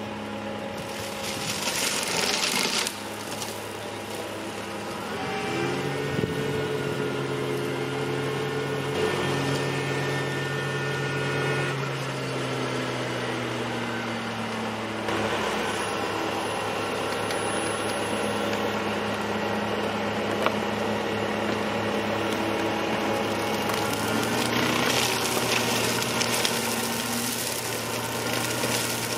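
Trackless MT7 tractor's diesel engine and hydraulic boom flail mower running steadily, the engine's pitch shifting several times as the boom is moved and loaded. A rushing noise swells about a second in and again near the end, when the flail head is chopping into the ditch grass.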